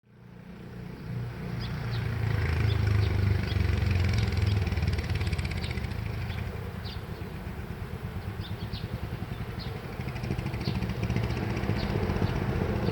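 Royal Enfield Classic 350's single-cylinder engine running through an aftermarket Indori 3K exhaust silencer, a pulsing low exhaust note that fades in, swells, eases off and builds again near the end.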